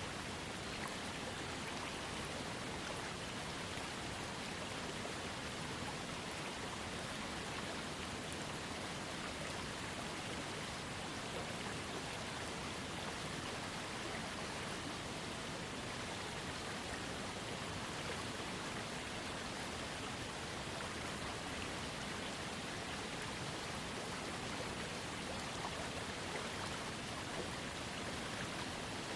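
Small waterfall heard from a trickling creek: a steady, unbroken rush and patter of falling and running water.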